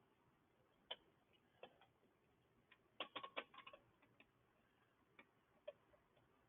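Faint metal clicks of hand tools and bolts being handled while the exhaust flange bolts are put in, with a quick run of clicks about three seconds in.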